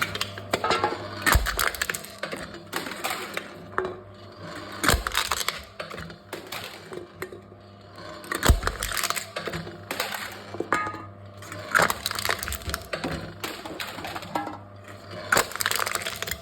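Aluminium drink cans being crushed by a can-crushing machine: repeated crunching and crackling of thin metal, with three heavy thumps a few seconds apart in the first half and bursts of crackling later, over a faint steady low hum.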